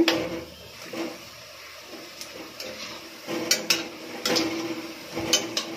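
Lauki kofta balls deep-frying in hot oil in a metal kadhai, a steady sizzle, with a metal slotted spoon clinking against the pan several times as it turns them.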